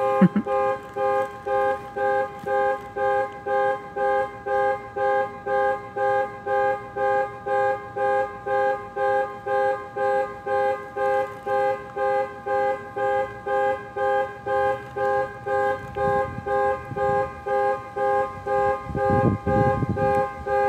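Car alarm sounding through the car's two-tone horn, honking in a steady on-off pulse about twice a second.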